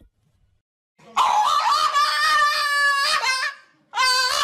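Black French bulldog giving two long, high-pitched howls. The first lasts over two seconds, and the second starts near the end.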